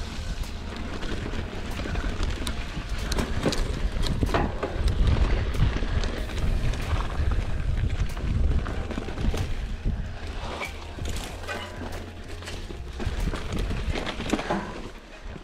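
Mountain bike rolling over rocky singletrack: tyres knocking and crunching on rock and dirt, with the bike rattling at frequent irregular knocks. Wind rumbles steadily on the bike-mounted camera's microphone.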